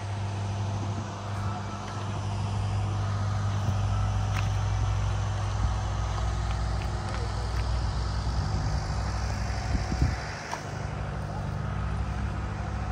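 A steady low engine hum, with a short knock about ten seconds in.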